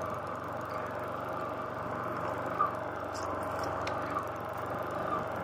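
Motorcycle engine running steadily while the bike rides along a rough grassy trail, with one sharp knock a little under halfway through.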